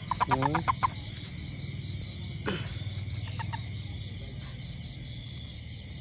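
Asian common toad giving a quick burst of rapid chirps, about ten a second, for a second while held in the hand. A steady trilling insect chorus runs underneath.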